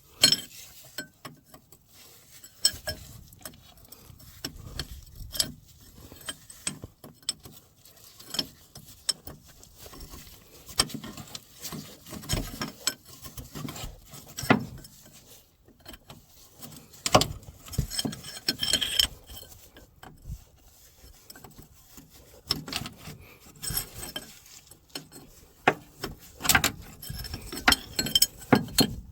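Metal hand tools clinking, knocking and scraping on a hydraulic hose fitting in irregular bursts as the hose is undone from a skid steer's drive motor.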